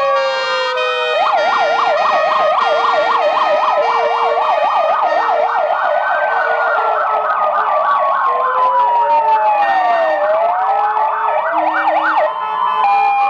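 Several ambulance sirens sounding together as a column of ambulances drives past: fast yelping sirens over slow rising-and-falling wails and alternating two-tone horns.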